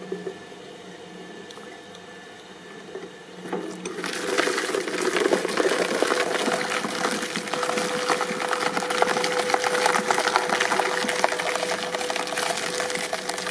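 A press machine crushing something brittle: a faint steady hum for about four seconds, then a dense run of crackling and snapping, like splintering wood, as the object gives way, over a steady machine tone.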